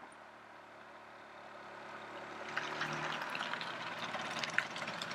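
Vespa 125 ET3 scooter's two-stroke single-cylinder engine approaching, growing steadily louder. Sharp ticks and crackles join in from about halfway.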